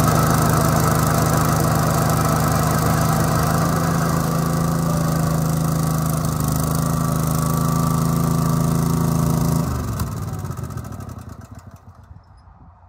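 Kohler engine of a Gravely 60-inch 20 hp hydrostatic riding mower running steadily. About ten seconds in the engine note breaks off, and the sound dies away unevenly over the last few seconds.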